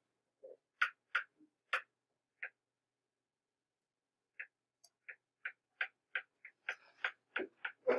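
Stylus clicking and tapping on a tablet screen during handwriting: irregular sharp clicks, a pause of about two seconds in the middle, then a quicker run of clicks near the end.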